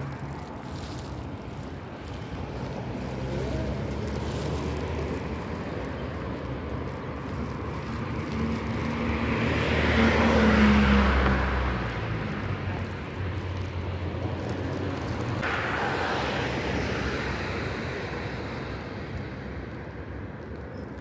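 Motor vehicles passing on a road: the engine and tyre noise grows to its loudest about halfway through and fades, and a second vehicle passes a few seconds later.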